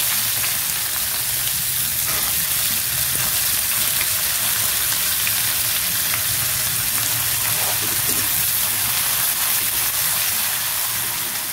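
Sliced onions sizzling steadily in hot oil in a kadai, just added and being stirred with a metal spatula, with a few faint scrapes of the spatula against the pan.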